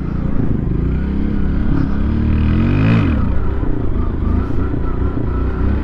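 Motorcycle engine revving up hard and rising in pitch, then dropping off sharply about three seconds in, in a stunt attempt (a wheelie). Engine and wind noise carry on after the drop.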